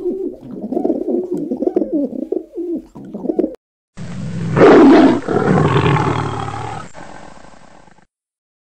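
A dove cooing, a run of repeated warbling coos lasting about three and a half seconds. After a brief silence, a tiger roars once, loud at first and trailing off over about three seconds.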